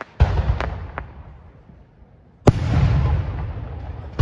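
Aerial firework shells bursting overhead: a loud bang just after the start with a few smaller cracks after it, another loud bang about halfway through and a third at the very end. Each bang is followed by a long echoing rumble that dies away.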